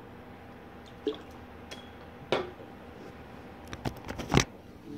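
Handling noise: a few scattered light clicks and knocks, with the loudest thump about four and a half seconds in, as the recording phone is moved.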